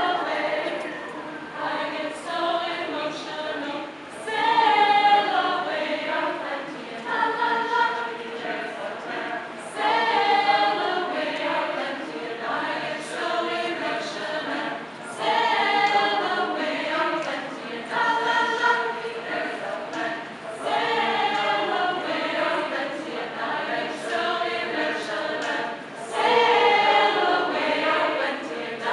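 An amateur chorus singing a cappella, voices only, with overlapping phrases that swell about every five seconds.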